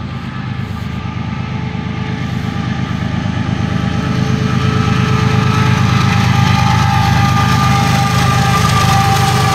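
Diesel locomotives of a CSX freight train rumbling, with a steady whine on top, growing louder as the lead units approach and pass close by.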